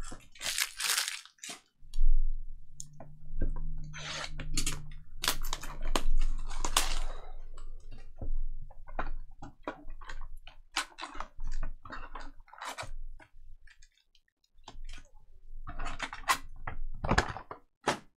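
Foil-wrapped trading card packs crinkling and rustling as they are taken out of an opened cardboard hobby box and stacked, with scattered taps and a sharp thump near the end as the packs and box are set on the table.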